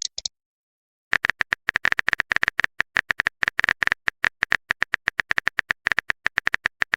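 Phone keyboard typing sound effect: a rapid, irregular run of sharp taps, several a second, starting about a second in after two short high electronic blips.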